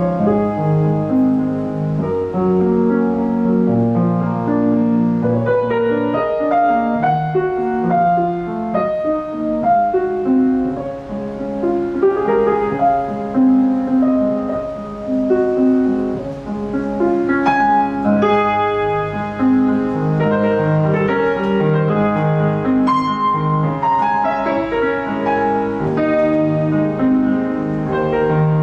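A grand piano played solo: a continuous stream of notes with no pauses, a moving upper line over longer held bass notes.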